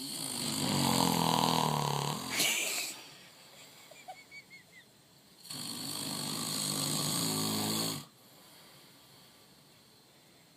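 A sleeping man snoring loudly: two long snores, each lasting two to three seconds and about three seconds apart, with faint short breath sounds between them.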